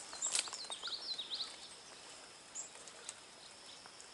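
A small bird chirping: a quick run of short, high, slurred notes, then a couple of single high notes.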